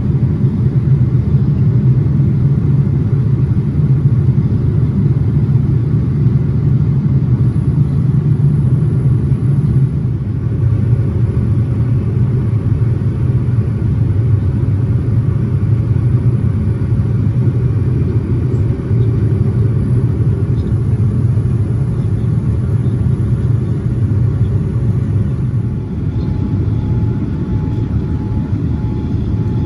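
Steady low rumble of a jet airliner's cabin in flight, engine and airflow noise heard from a window seat during the descent. Near the end the rumble eases slightly and a faint steady whine comes in.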